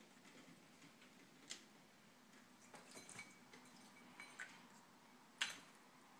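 A Senegal parrot making a few short, faint chirps and clicks over near silence, the loudest about five seconds in.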